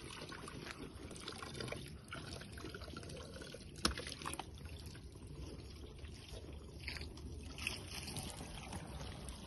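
Faint water trickling and sloshing as a small child's hands move in a plastic basin of water, with one short knock about four seconds in.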